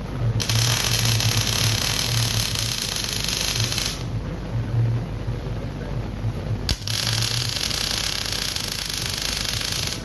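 MIG welding arc hissing and crackling in two runs of about three and a half seconds each, with a short break between, as steel eye-bolt studs are welded onto a steel post. A steady hum from the welding machine runs underneath.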